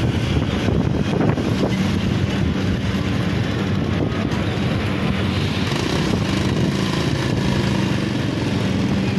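Engine running steadily: an even, low drone with no change in level.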